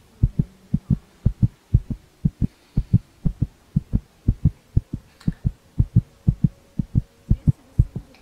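Heartbeat sound effect: a fast, even lub-dub of low thumps, paired beats coming a little under twice a second, over a faint steady drone.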